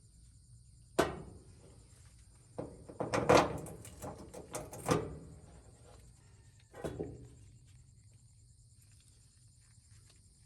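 Knocks and clatter of dryer parts and tools being handled: a sharp knock about a second in, a burst of rattling clatter from about two and a half to five seconds, and another knock near seven seconds.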